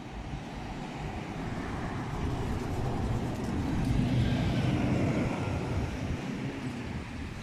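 Articulated city bus driving past close by: its engine noise grows as it approaches, is loudest about four to five seconds in as it passes, then fades as it pulls away.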